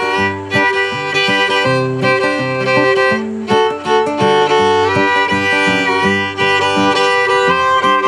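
Fiddle bowing a melody in held notes over acoustic guitar chords.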